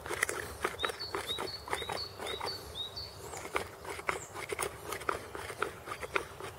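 Flint flake scraping against deer antler in quick, short strokes, about three to four a second. A bird calls a run of short chirps from about one to three seconds in.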